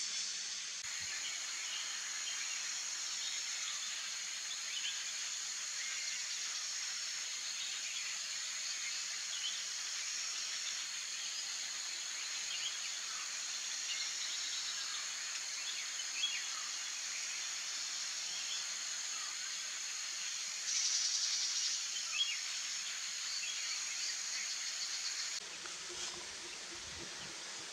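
Outdoor ambience of a steady, high-pitched insect chorus with scattered short bird chirps, swelling briefly about two-thirds of the way in. Near the end it cuts to a softer, even hiss.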